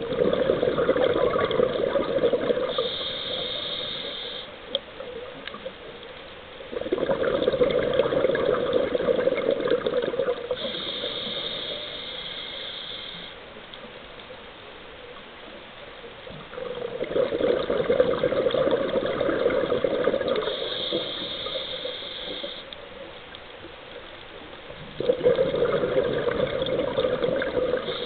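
Scuba diver breathing through a regulator underwater, about four breaths: a short high hiss on each inhale, then a longer rush of bubbles on each exhale, repeating roughly every eight to nine seconds.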